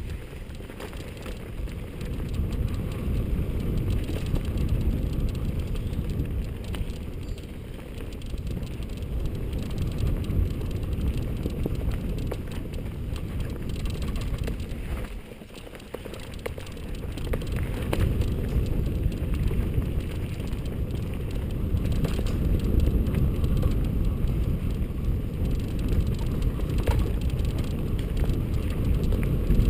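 Mountain bike riding fast down a dirt singletrack: a steady low rumble of knobby tyres on dirt and wind buffeting the microphone, with occasional clicks and rattles from the bike over bumps. It eases off briefly about halfway through, then builds again.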